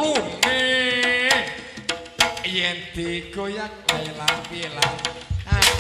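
Live Javanese jaranan ensemble music: sharp hand-drum strokes in a quick, uneven rhythm under a held, wavering melody line.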